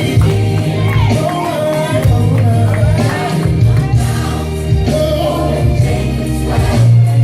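Gospel music: a choir singing over a band with a heavy bass line and a steady beat.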